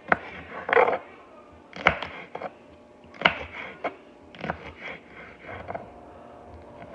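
Kitchen knife chopping through peppers onto a cutting board: a string of irregular single chops, roughly one every second or so, the first few the loudest.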